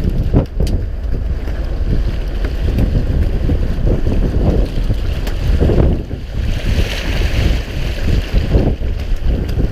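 Wind buffeting the microphone on a boat at sea, a heavy uneven rumble over the wash of the water, with a brief brighter hiss of water about seven seconds in.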